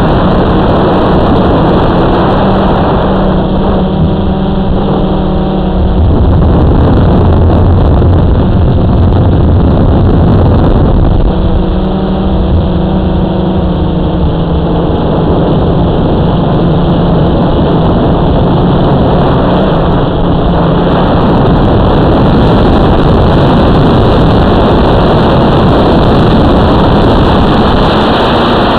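Drone motors and propellers buzzing steadily, recorded close by the drone's own onboard camera. The hum shifts in pitch a few times, about six, eleven and twenty seconds in, as the motor speeds change.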